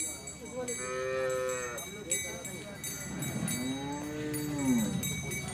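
Cattle mooing: two calls, a shorter, higher one about a second in, then a longer call that rises and falls in the second half.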